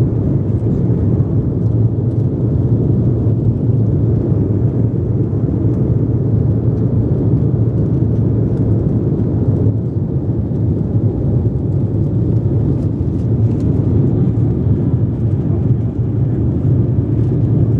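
Embraer 190 take-off heard from inside the cabin: its two GE CF34-10E turbofans run steadily at take-off thrust through the runway roll and lift-off, a loud, steady low engine noise.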